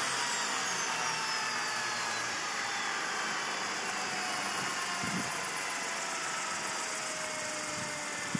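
Large scale RC model of an Aérospatiale SA 315B Lama helicopter winding down on the ground. Its high engine whine slides steadily down in pitch and fades as the rotors slow.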